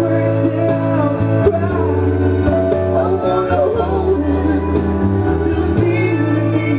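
A man and a woman singing a song into microphones over amplified backing music with guitar and a steady bass line.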